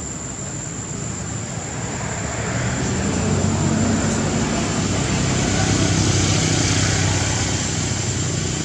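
A motor vehicle passing: a low engine hum and road noise that swell over a few seconds and ease off near the end.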